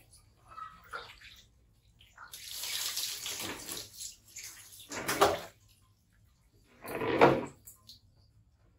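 Water poured from a plastic bowl and splashing over a baby monkey being bathed. There is one longer pour about two seconds in, then shorter splashes near the middle and about seven seconds in.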